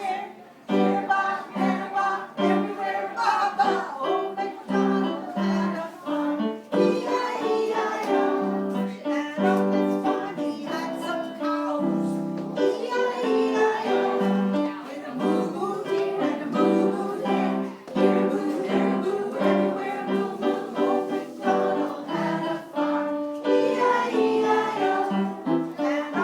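Sing-along song: a woman leads children singing to an acoustic guitar.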